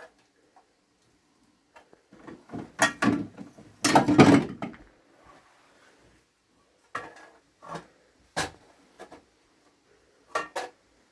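A series of household knocks and clatters: a busy cluster about two to five seconds in, loudest about four seconds in, then scattered single knocks.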